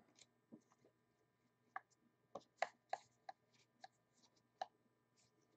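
Faint, irregular clicks and taps of cardboard trading cards being handled and set down on a stack, about ten in a few seconds.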